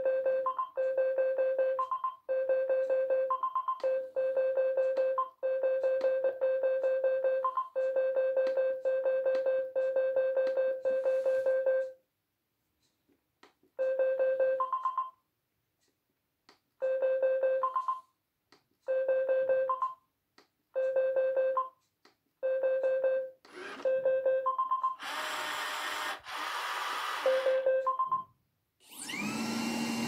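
Roomba 980's built-in test-mode beeping: a buzzy electronic tone at one steady pitch, repeated in spells of about a second, each ending on a short higher blip, with a two-second pause midway. Near the end, a motor whirs in short spells between the beeps.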